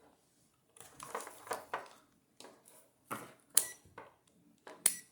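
Multimeter test leads and their plastic packaging being handled: short scrapes and clatter, with two sharp clicks, one about three and a half seconds in and one near the end.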